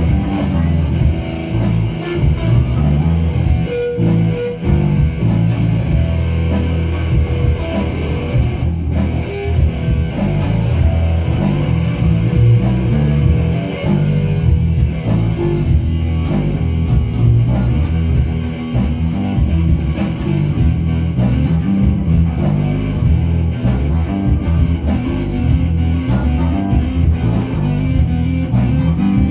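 Electric guitar and bass guitar playing a loud rock riff together, heavy in the low notes, with no singing.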